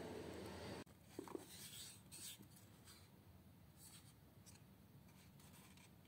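Faint rubbing and light tapping of fingers handling a small wooden model box, with a couple of soft knocks a little over a second in. A steady hiss before that cuts off suddenly just under a second in.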